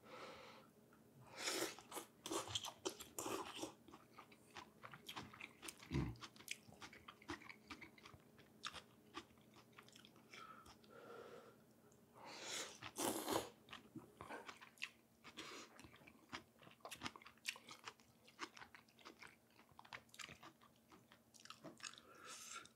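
A person eating pho close to the microphone: chewing with many small wet mouth clicks, with two louder stretches, a couple of seconds in and again about halfway through.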